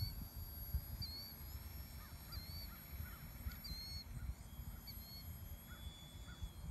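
Wind rumbling on the microphone, with faint bird calls about once a second and a thin high whine from the RC model airplane's motor and propeller that comes in about halfway through and rises a step near the end as the model takes off and climbs.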